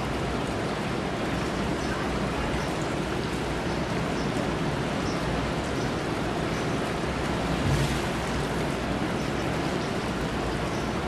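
Steady wash of distant ocean surf with outdoor ambience and an uneven low rumble, rising briefly louder about eight seconds in.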